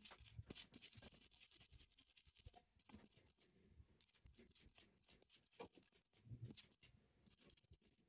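Faint, irregular scratching of a small wire brush scrubbing a dirty furnace flame sensor rod clean.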